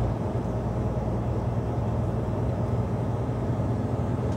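Heavy truck's diesel engine and road noise inside the cab while driving, a steady low drone. The engine's low hum eases off slightly just as it begins.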